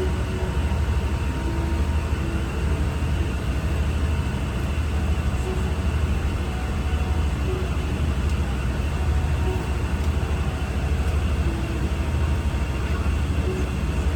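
Steady low rumble of a Boeing 777-300 passenger jet heard from inside the cabin: engine and airflow noise with no rise or fall.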